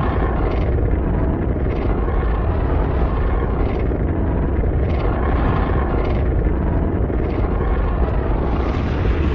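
Godzilla-style atomic breath monster sound effect: a continuous, loud rushing blast with a deep rumble underneath and a rough hiss on top, holding steady and brightening near the end.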